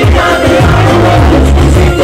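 Salsa music playing loud, with a strong bass line under the melody.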